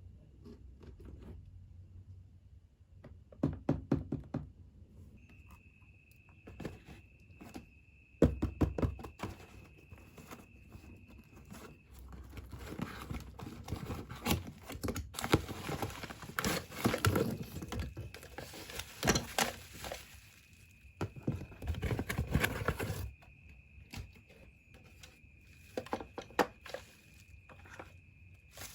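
A toy box and its packaging being handled: scattered thunks and knocks, with a busier stretch of rustling and knocking in the middle. A faint steady high tone runs beneath for much of it.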